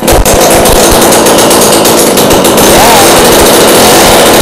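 Two-stroke string trimmer engine with a homemade straight pipe, running loud and steady at high revs with a fast, rattling firing note.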